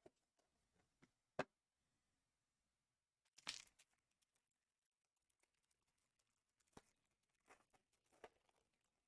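Faint handling of trading card box packaging: a sharp tap, then a brief tear and crinkle of wrapper about three and a half seconds in, followed by a few light taps.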